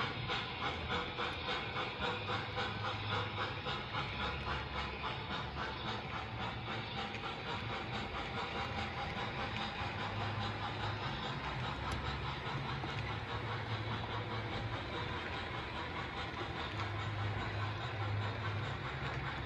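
O gauge model passenger train rolling past on the layout track: a steady rolling rumble from the cars' wheels, with a rhythmic ticking of about four to five beats a second that fades away over the first several seconds.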